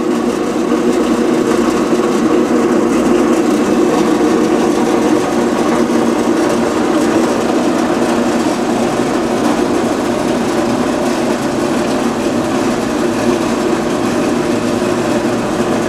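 Carolina HD-10 horizontal band saw, with its 3/4 hp single-phase motor, running steadily with a constant mechanical hum as the blade feeds down through a cut.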